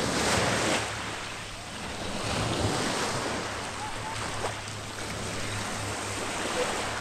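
Small waves washing in on the shoreline, swelling near the start and again about two seconds in, with wind buffeting the microphone.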